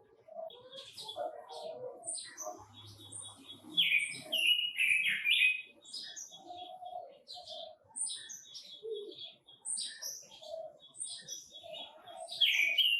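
Quế Lâm birds (red-billed leiothrix) chirping and singing in quick, varied phrases, with a louder run of song about four seconds in and again near the end.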